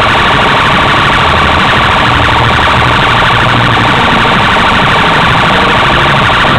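Car sound system playing loud, distorted electronic music with a steady, alarm-like high tone over pulsing bass.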